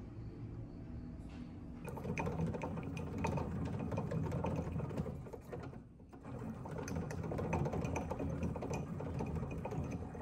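Hand-cranked generator demonstration model: the crank wheel and belt drive spin the rotor with a fast mechanical whirring clatter. It starts about two seconds in, drops away briefly near the middle and picks up again.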